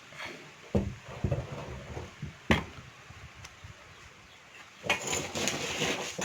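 Knocks and clatter from handling the reassembled Godrej manual typewriter and its carriage: a few sharp knocks in the first half, the loudest about two and a half seconds in, then about a second of scraping and rustling near the end.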